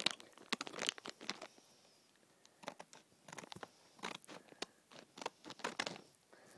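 Foil LEGO minifigure packet crinkling and crackling in the hands as it is torn open, in short irregular bursts with a brief lull about two seconds in.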